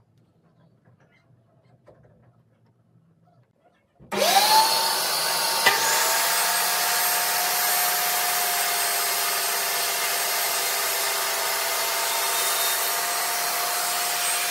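Near quiet for about four seconds, then a dust-extraction vacuum starts, and about a second and a half later the DeWalt DWE7485 table saw's 1850 W motor spins up and runs steadily while a board is ripped along the fence.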